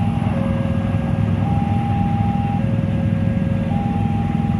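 Electronic railway level-crossing warning alarm sounding a two-tone signal, a higher and a lower note alternating evenly about once a second, over a steady low rumble.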